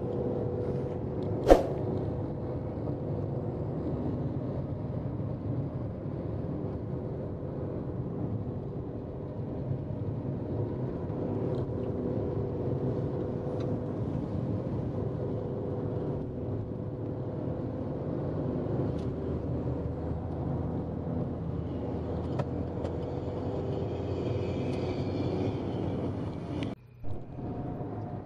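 Steady tyre and engine rumble heard inside a car cruising on a concrete toll road, with one sharp click about a second and a half in. The sound briefly drops out near the end.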